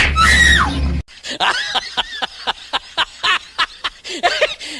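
A looped, falling-pitch sound effect over a low hum stops about a second in. It is followed by rapid snickering laughter: short, high 'heh' sounds about four a second, of the kind dubbed onto prank videos.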